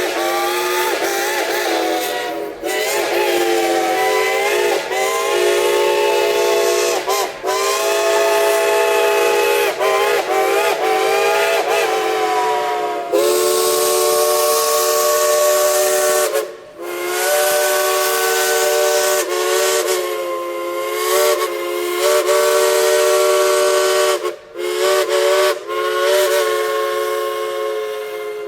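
Steam locomotive whistles blowing long, near-continuous blasts with a few brief breaks, over a hiss of steam. The chord bends up and down in pitch as the valve is worked during the first half, then holds steadier.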